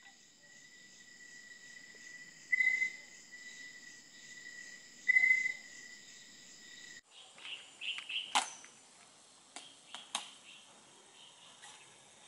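A steady high insect shrill, swelling much louder twice. About seven seconds in it cuts off and gives way to birds chirping, with a few sharp clicks.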